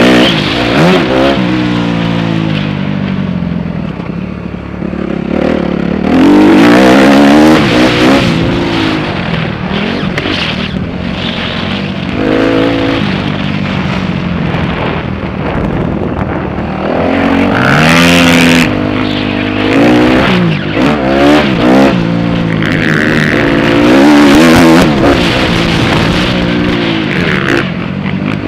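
On-board sound of a motocross dirt bike engine, revving up hard and dropping back over and over as the rider accelerates, shifts and rolls off the throttle for corners. The loudest full-throttle pulls come about six, eighteen and twenty-four seconds in.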